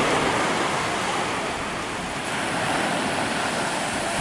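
Waves washing in with a steady rushing noise of surf, without a break.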